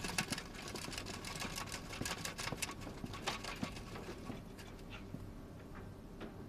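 A wheeled room-service trolley with a metal cloche rattling as it is pushed: a quick run of light clicks that dies away about five seconds in.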